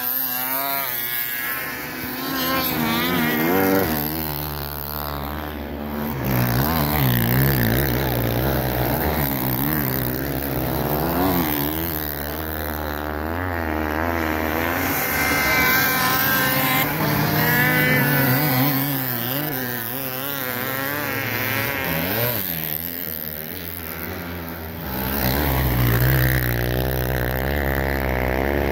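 Snowmobile engines running hard, their pitch wavering up and down as they rev. The sound grows louder and fades several times.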